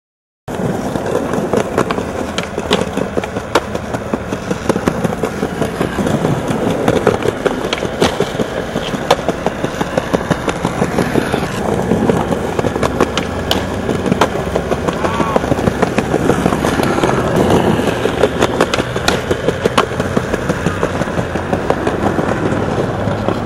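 Skateboard wheels rolling on rough concrete with a steady rumble, broken by frequent sharp clacks of the board. It starts suddenly about half a second in.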